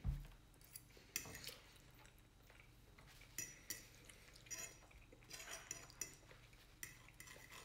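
Metal fork scraping and clinking against a plate in short, scattered strokes, faint.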